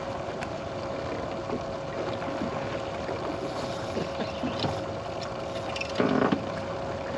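Wind and water noise aboard a bass boat, with a steady mechanical hum running under it and faint scattered clicks; a brief louder rush comes about six seconds in.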